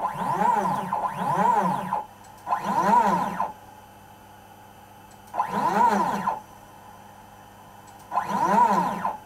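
Stepper motors on a DIY CNC router's lead-screw axis making five short jog moves, each lasting about a second. The whine rises in pitch as the axis speeds up and falls as it slows to a stop, and a faint steady hum carries on between moves. The jogging is part of a backlash check against a dial indicator.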